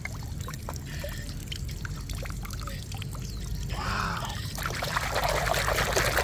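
Water in a plastic tub trickling and splashing as a toy truck is dipped and swished through it by hand. The sound is soft at first and the splashing gets louder over the last second or so, with a brief pitched sound about four seconds in.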